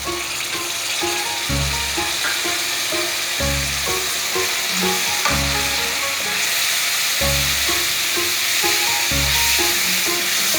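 Food sizzling steadily in hot oil in a pan, under background music with a repeating bass line.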